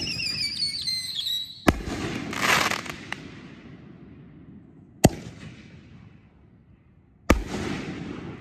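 Epic Fireworks Golden Eye 6-inch canister shells firing: a sharp bang, then a shrill whistling tail for about a second and a half, cut off by a loud burst with a rushing hiss. Two more sharp bangs follow, the last with a hiss trailing off.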